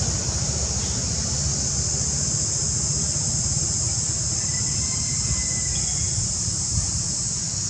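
Steady high-pitched insect drone over a low rumble, with a faint brief thin whistle about the middle.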